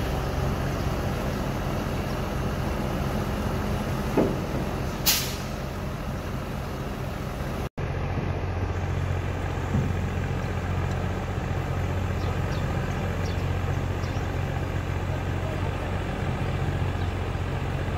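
Diesel engine of a truck-mounted crane running steadily while it lifts and swings a fishing boat out over the water. A knock and then a short hiss of air come about four to five seconds in.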